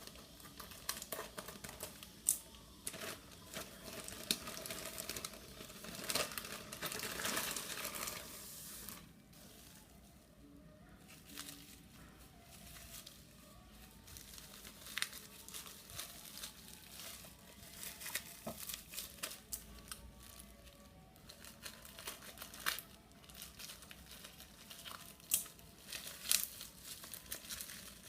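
Packaging crinkling and tearing as a parcel is unwrapped by hand. The rustle is dense for the first several seconds, then gives way to scattered sharp crackles and clicks.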